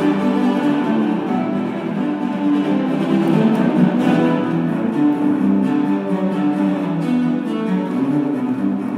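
Cello octet: eight cellos bowing together in a classical arrangement of Irish music, with long held notes sounding at several pitches at once.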